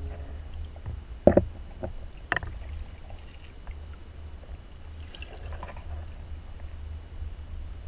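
Low steady rumble of water sounds around a small boat, with two sharp knocks, the first about a second in and the second about a second after it, and a few fainter taps later.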